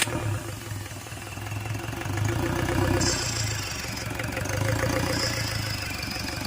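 Hyundai Accent CRDi common-rail diesel engine running at idle just after catching from cranking, its level dipping about a second in and rising again. The car has a hard-starting fault.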